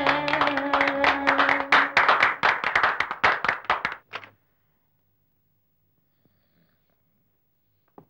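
Hands clapping in a quick steady rhythm to a folk song, with a held note from the music over the first two seconds. The clapping stops about four seconds in, leaving near silence broken by a faint click near the end.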